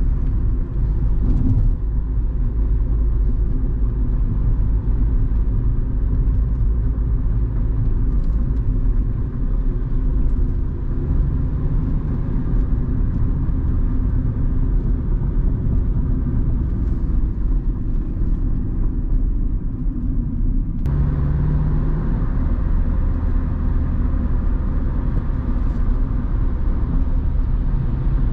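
Honda Civic's 1.4-litre four-cylinder petrol engine and tyre noise heard from inside the cabin while the car is driven at steady city speed. The sound changes abruptly about three quarters of the way through.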